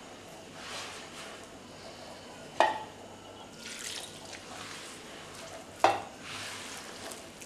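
A hand rubbing and squeezing flour, oil and water into a crumbly dough in a large clay bowl: soft scraping swishes every second or two. Twice, about three seconds apart, a sharp knock against the bowl rings briefly; these knocks are the loudest sounds.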